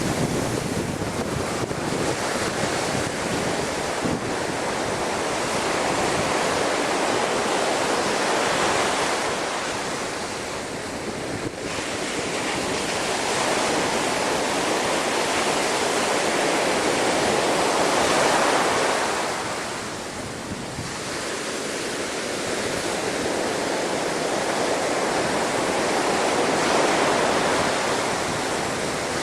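Storm waves surging and breaking against a sea wall, a continuous rush of surf that swells and eases about every nine seconds, with wind buffeting the microphone.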